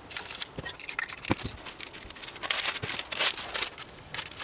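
Spray-paint art materials being handled on a worktable: a short hiss at the start, a few sharp clicks and knocks from spray cans and caps, then a magazine page rustling as it is pressed flat onto the poster board.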